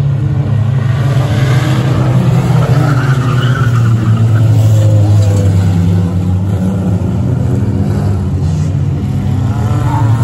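Several race cars' engines running hard as they race around a dirt track, with a steady loud engine note and rising and falling revs over it.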